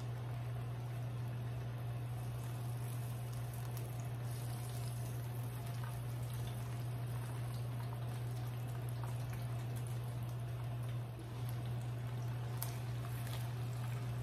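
Hot fat and juices sizzling and crackling in a turkey roasting pan, with scattered small pops, over a steady low hum.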